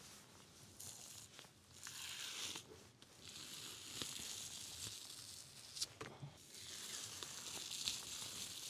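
Thin membrane being peeled and torn away from raw lamb: three drawn-out tearing strokes, faint, with a few sharp clicks between them.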